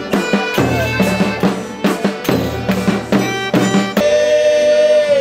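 Folia de Reis street music: a drum beating a steady rhythm under sustained held instrument notes. About four seconds in the drum stops and voices take up a long held note.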